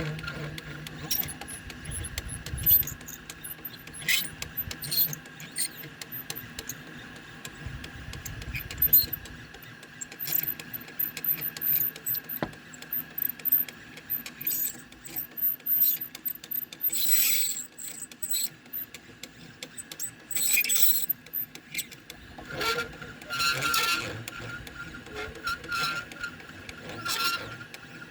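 3018 CNC laser engraver at work, its stepper motors whining in short, stop-start moves as they drive the head, with intermittent clicks.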